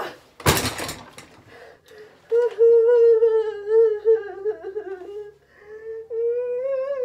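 A high voice held on long, wavering notes without words: one note of about three seconds starting a couple of seconds in, and a second one near the end, after a brief rustle of movement at the start.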